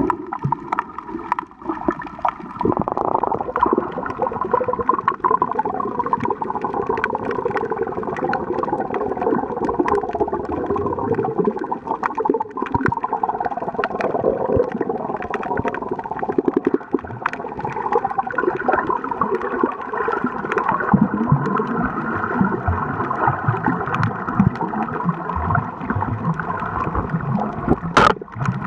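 Underwater sound heard through a camera's waterproof housing: water swishing and gurgling against the housing, with many small clicks and crackles and a steady low hum.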